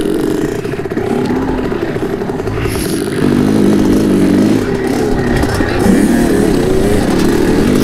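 Two-stroke dirt bike engine running at low speed over rocks, its pitch rising and falling with the throttle. It gets louder about three seconds in.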